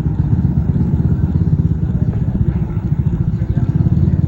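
A small engine running steadily with a rapid low pulsing.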